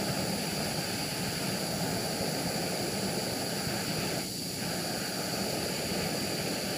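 Torch flame running with a steady rushing noise while it heats a nail red-hot for soldering; the noise dips briefly about four seconds in.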